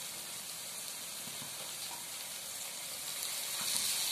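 Onion-tomato masala sizzling in hot oil in a pan, a steady hiss that grows a little louder about three seconds in.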